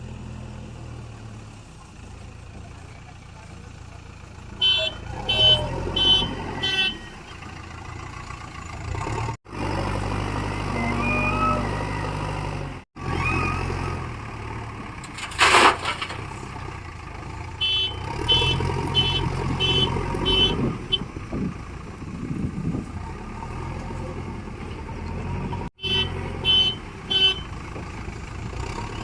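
Diesel engines of a backhoe loader and tractors running steadily, with three runs of short high-pitched beeps and a brief loud hiss about halfway.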